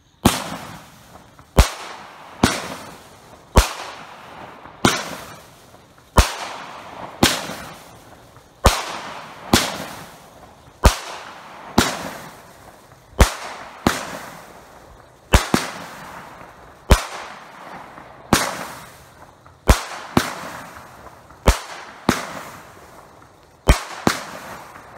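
A Cutting Edge 'Infamy' 200-gram 16-shot glitter cake firing: a steady string of sharp bangs about one a second, each trailing off in a fading tail.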